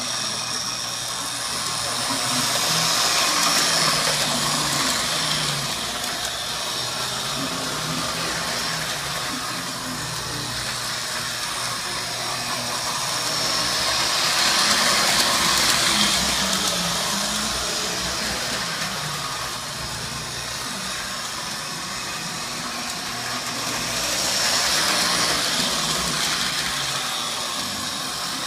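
Lionel 610 Erie switcher, a postwar O gauge model diesel, running on tubular track: its electric motor and gears whir and the wheels clatter along the rails. The sound grows louder and fades three times, about every ten seconds.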